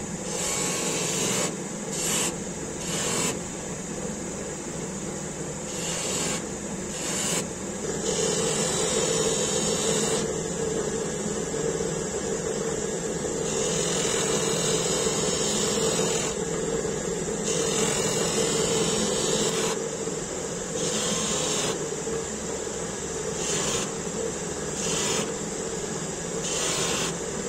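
A bench grinder motor hums steadily while the curved steel blade of a forged sculpture adze is pressed against its emery wheel. Each pass adds a harsh grinding hiss, in repeated short contacts with longer ones in the middle.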